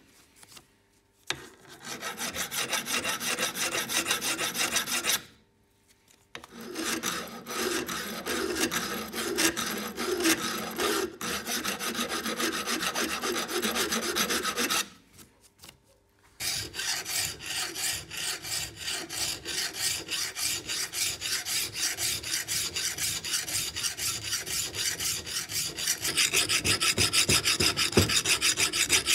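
Flat hand file scraping back and forth across the steel of an old C-clamp, first on the clamp's jaw face and then on the frame, in quick regular strokes of about two to three a second. The filing stops briefly three times, and the strokes are loudest near the end.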